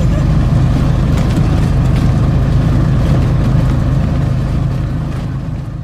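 Motor vehicle's engine and road noise heard from inside the cabin while driving, a steady low drone that begins to fade near the end.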